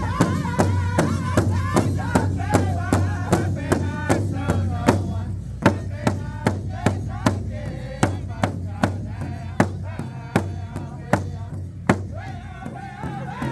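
A Northern-style powwow drum group singing an intertribal song in high voices together, over a large powwow drum struck in unison at a steady beat of about two to three strokes a second. The singing thins out near the end while the drumbeat carries on.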